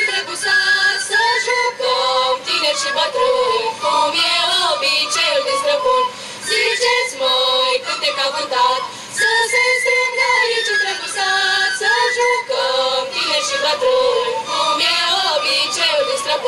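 A folk choir of women and men singing a Romanian traditional song, the women's voices most prominent. The song moves in sung phrases, with two short breaks about six and nine seconds in.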